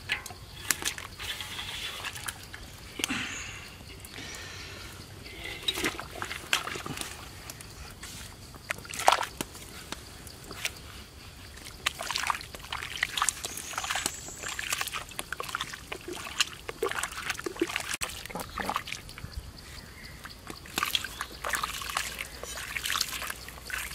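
Water sloshing and splashing in a large metal cooking pot as a ladle scoops and pours it over a crocodile lying in it, with scattered splashes and clinks at irregular intervals.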